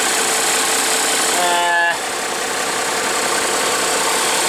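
Diesel bus engine idling steadily, heard from inside the bus. About a second and a half in, a short pitched tone sounds for about half a second.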